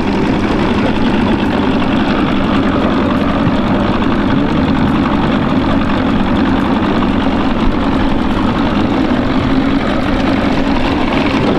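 Boat's outboard motor running steadily with a constant low hum, under a haze of wind and water noise.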